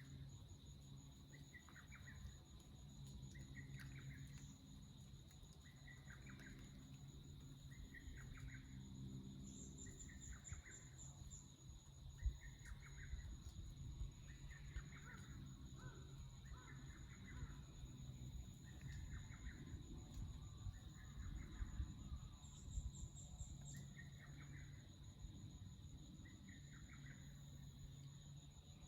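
Forest ambience: a bird gives a short call over and over, roughly every second and a half, over a steady high insect drone, with a brief high trill twice.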